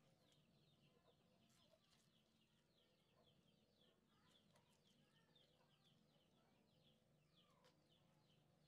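Near silence, with faint, rapid high chirping of birds in the background, many short falling chirps a second.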